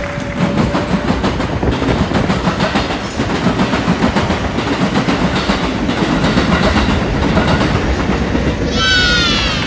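Train running along the track with an uneven, choppy rumble. A short, falling high-pitched squeal comes near the end.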